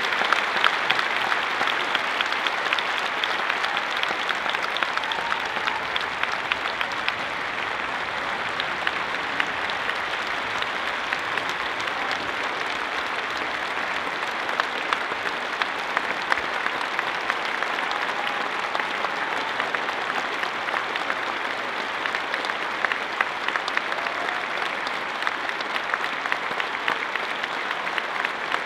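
Large concert audience applauding steadily, a dense continuous clapping that eases slightly over time.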